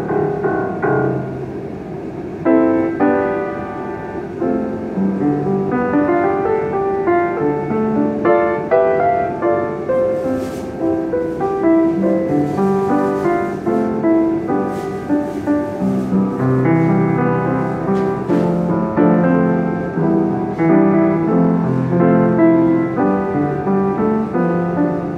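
Chappell upright piano being played: chords and running notes in a continuous flow, with a louder new passage starting about two and a half seconds in.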